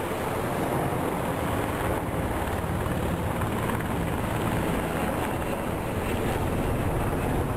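Helicopter flying overhead: steady rotor and engine noise with a rapid low pulsing from the blades.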